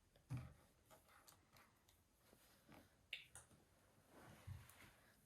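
Near silence with a few faint taps and soft rustles of hands working a doll's hair into a braid.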